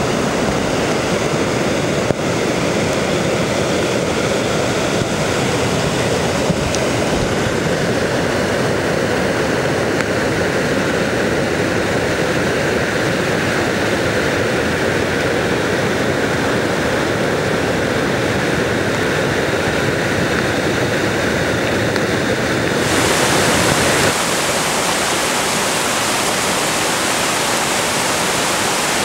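Barron Falls in full flood: a loud, steady rush of floodwater pouring and crashing over rock. About 23 seconds in, the sound changes abruptly to a brighter, hissier rush.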